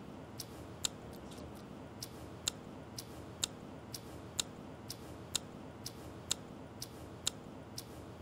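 A spoon clicking against the side of a small bowl while stirring a thick mayonnaise sauce, about two clicks a second in an even rhythm, alternating louder and softer.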